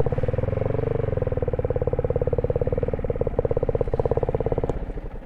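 Yamaha MT-15's single-cylinder four-stroke engine idling with a steady, rapid even pulse, dying away near the end.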